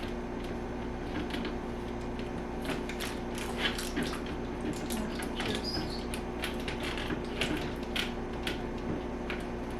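Irregular clicks, taps and light knocks of plastic parts of a portable clothes dryer being handled and pushed together while fitting a piece onto it, over a steady low hum.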